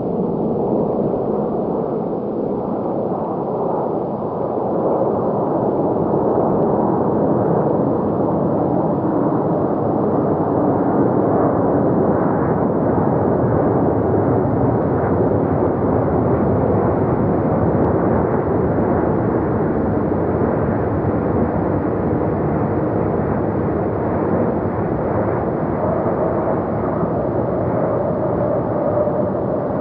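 A landing jet airliner: a steady, deep rushing noise, with a faint steady tone joining in near the end.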